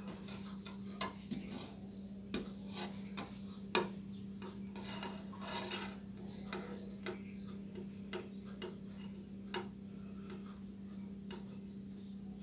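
Small irregular clicks and light rubbing from fingers handling and twisting together the thin wire leads of a resistor and a capacitor, one click near four seconds in louder than the rest, over a steady low hum.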